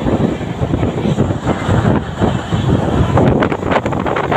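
Express train running at full speed, heard from inside a coach at an open window: a steady wheel-on-rail rumble with wind buffeting the microphone. A quick run of sharp clacks comes near the end.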